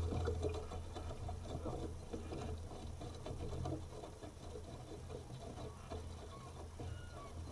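Water lapping and trickling in small crackles against the hull of a rowing scull gliding with its oars at rest, slowly fading, over a low steady rumble.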